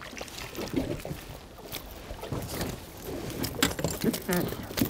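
Water splashing as a small hooked garfish thrashes at the surface and is drawn in to the boat, over the lap of water against the hull, with several sharper splashes in the second half.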